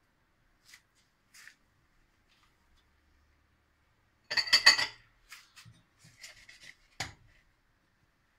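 Kitchen handling noises: a short burst of fast rattling scrapes about four seconds in, then a few soft knocks and a sharp click.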